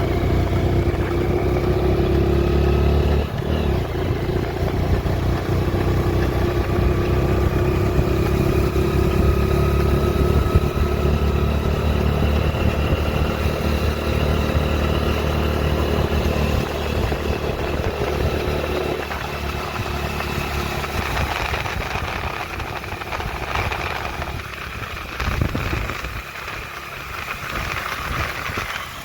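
A vehicle engine running steadily, its pitch creeping slowly upward, then dropping about two-thirds of the way through and getting quieter toward the end.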